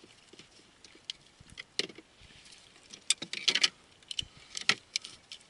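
Irregular sharp clicks and knocks from gear being handled in a small wooden boat, thickest in a cluster in the middle. No motor runs: the electric trolling motor has cut out on a tripped breaker.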